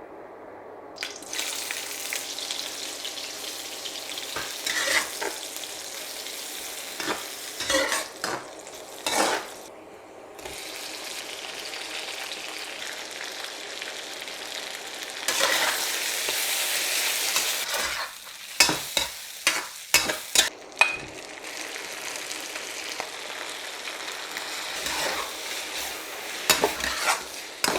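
Food sizzling in hot oil in a wok while a spatula stirs it, with repeated sharp clacks of the spatula against the pan. The sizzle swells for a few seconds about halfway through.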